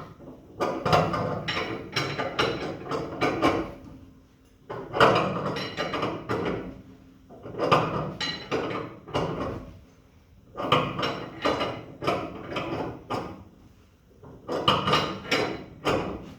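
Wrench turning the nut on a threaded-rod coil spring compressor to let a compressed car coil spring unwind, metal clicking and scraping in five bursts of a few seconds each with short pauses between strokes.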